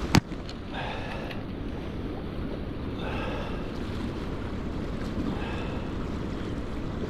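Steady wind and river-water noise across the microphone, with one sharp click just after the start.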